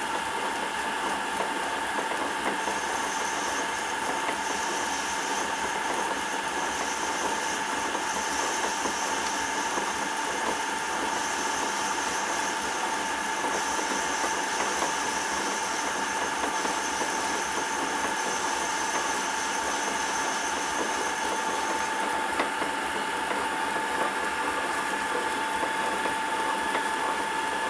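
Small lathe running steadily with a whine while a cutting bit turns an O-ring groove into a spinning acetal rod. A thin, higher hiss rides over it from about three seconds in until about twenty-two seconds in.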